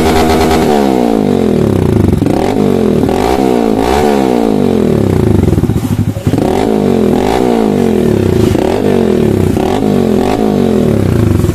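Hero HF Deluxe BS6's single-cylinder four-stroke engine running through an aftermarket Yamaha RX100-style silencer with its baffle tube removed. The throttle is blipped again and again, the exhaust note rising sharply and falling back each time.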